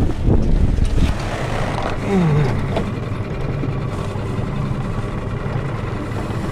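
Small boat's outboard motor running at a low, steady idle, with a heavier low rumble in the first second. A short falling voice sound comes about two seconds in.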